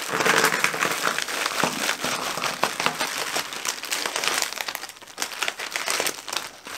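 Plastic mailer bag and packaging crinkling as a parcel is shaken out, with small clear plastic boxes of treble hooks clattering onto the table in a run of short clicks.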